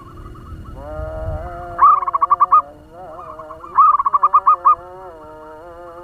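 Zebra dove (perkutut) calling: two quick runs of rapid staccato coo notes, about nine notes each, about two seconds apart. Under them runs a steady, wavering melodic drone.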